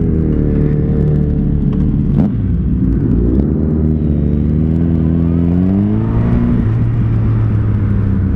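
Motorcycle engines running, one revving so its pitch rises and falls, climbing between about three and six seconds in before settling. There is a sharp click about two seconds in.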